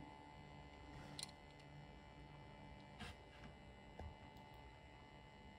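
Near silence: a steady low room hum, with a few faint ticks from fingers handling a small diecast model car.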